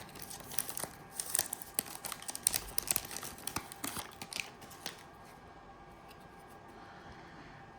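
Foil trading-card pack being torn open and the cards handled: quick crinkling, tearing and rustling that dies down after about five seconds.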